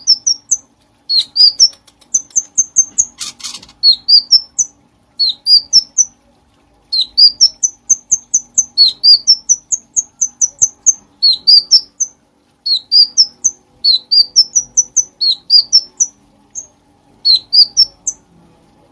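Cucak cungkok singing continuously and loudly: phrase after phrase of quick chirps, each note sweeping upward, with short pauses between phrases. A faint steady hum lies underneath.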